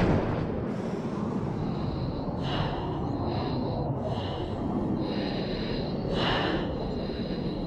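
Steady rumble of a Hawker Hunter jet, with a thin high whine coming and going and two short hisses about two and a half and six seconds in.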